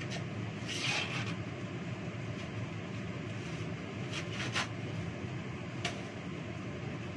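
Steady rush of water running at a kitchen sink while things are washed by hand, with short clattering knocks about a second in, twice around four and a half seconds, and once near six seconds.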